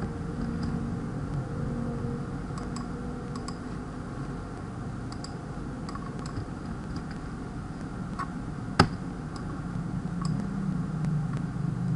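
Scattered computer mouse clicks and key presses while text is copied and pasted, with one louder sharp click about nine seconds in, over a steady low background hum.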